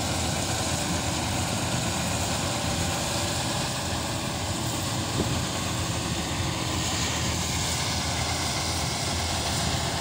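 New Holland 8080 combine harvester running steadily as it cuts wheat: its diesel engine and threshing machinery make an even low hum.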